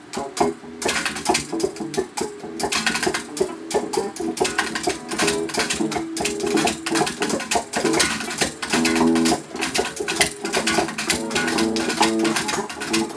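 Guitar played in a jam, with rhythmic, steady chord strokes.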